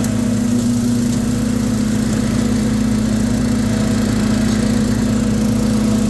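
18-horsepower Kohler engine of a Hustler FasTrak zero-turn mower running steadily at an even speed.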